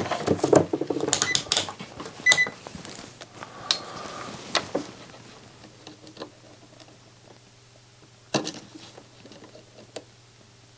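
Clicking and handling of a multimeter and its test probes on a circuit board, with two short high beeps in the first few seconds. After that it goes quieter, leaving a low steady hum and an occasional click.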